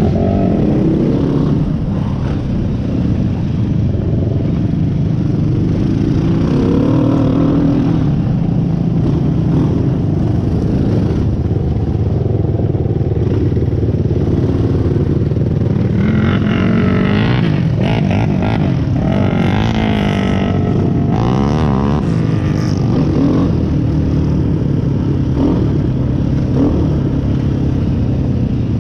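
Off-road vehicle engine running on a trail, its pitch rising and falling with the throttle. About halfway through come several seconds of knocks and rattles.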